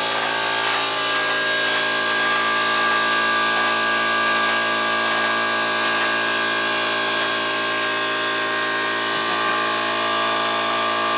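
A machine running steadily, a constant hum and whine at an even level, with faint regular ticking on top; it cuts in suddenly just before.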